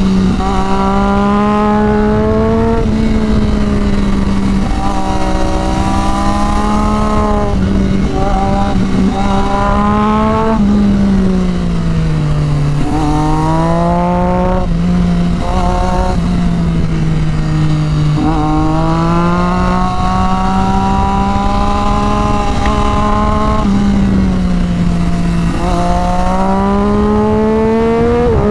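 Sport bike engine heard from onboard, its note rising as it accelerates and dropping back several times through the bends, over a steady rush of wind noise.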